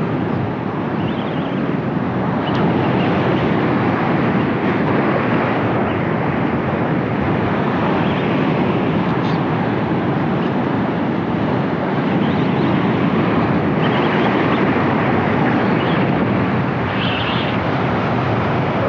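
Steady rushing of wind buffeting the microphone, mixed with ocean surf.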